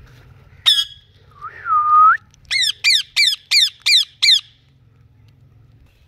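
Indian ringneck parakeets calling: one sharp squawk, then a drawn-out whistled note that turns upward at its end, then a quick run of six harsh squawks.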